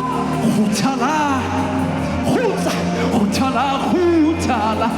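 A man sings a Sesotho gospel worship song, his voice sliding and bending between notes, over band accompaniment with sustained chords and a steady bass.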